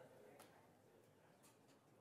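Near silence: faint room tone of a lecture hall, with a few soft clicks.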